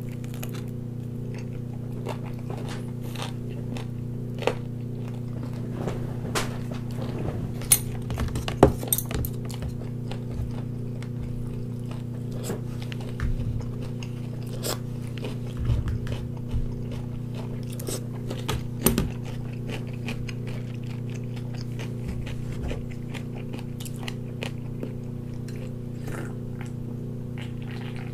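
Close eating sounds: chewing and biting on chicken drumstick meat and pickled radish cubes, with scattered crunches and small clicks. A steady low hum runs underneath.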